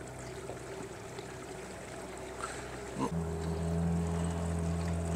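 Small boat motor running steadily at low speed; about three seconds in there is a short knock, and the motor then runs louder and steadier at a higher speed.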